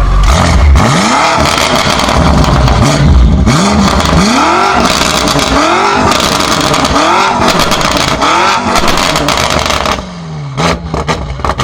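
BMW M5 F90 twin-turbo V8 with a SuperSprint exhaust being revved in quick blips, about six rises and falls in pitch. About ten seconds in the revs drop and the exhaust crackles and pops.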